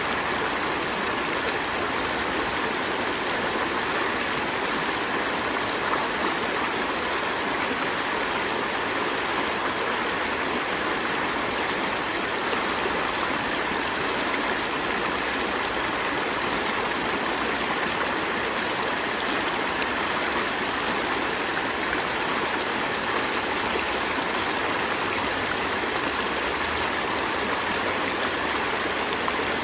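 River stream flowing: a steady, even rush of running water.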